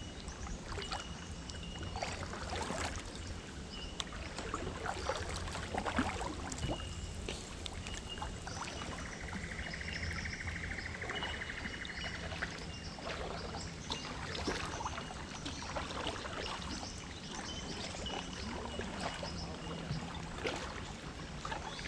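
Kayak paddle strokes: the blades dipping and splashing, with water dripping off, in a repeating rhythm. A thin, high call repeats in short notes in the background, with a brief buzzing trill about halfway through.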